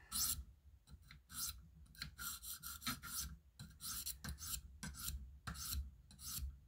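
600-grit stone on a KME guided sharpening system stroked along the edge of an M390 steel knife blade: a string of short rasping strokes, roughly two a second, refining the scratch pattern.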